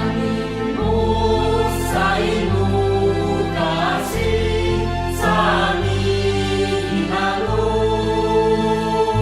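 Slow background music with a choir of voices singing held notes over low chords that change every second or two.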